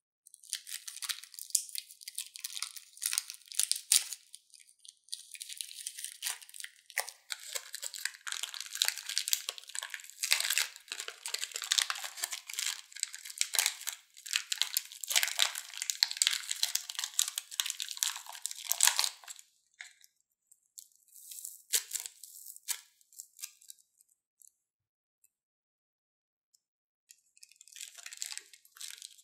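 Plastic piping bag full of small foam beads crinkling and crackling in the hands as it is squeezed and the beads are pushed out. A dense, rapid crackle stops about two-thirds through. A few scattered crackles follow, then another short burst near the end.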